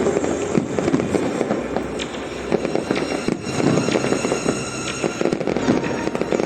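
Fireworks display: a dense, continuous stream of crackling and popping bursts.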